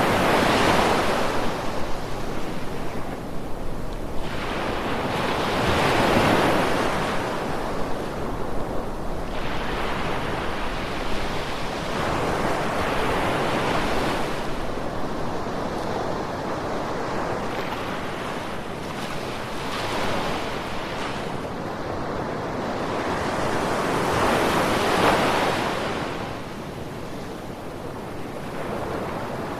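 Ocean surf: waves breaking and washing in, a continuous rushing noise that swells about every six seconds.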